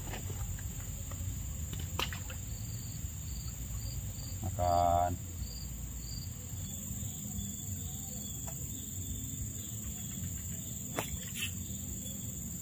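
Insects trilling steadily with a continuous high, even buzz. From about two and a half to six seconds a short run of high, evenly spaced chirps comes in at about two a second. A couple of sharp clicks are heard, one about two seconds in and one near the end.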